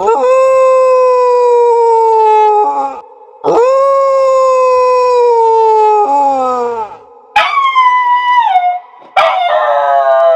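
A dog howling: four long howls with short breaths between them, each sliding down in pitch.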